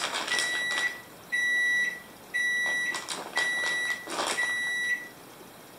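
Kitchen range oven beeping five times, a steady high tone about half a second long roughly once a second, signalling that it has finished preheating. A plastic bag crinkles between the beeps.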